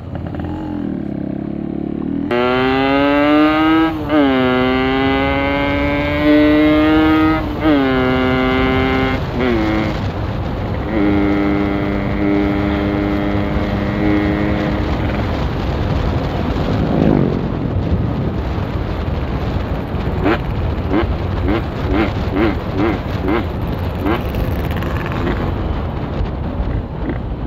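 Motorcycle engine heard from the rider's seat, accelerating hard through several gears: the pitch climbs and drops back at each shift, then holds steady at cruising speed. Near the end the engine pitch wavers up and down with the throttle, over constant wind rush.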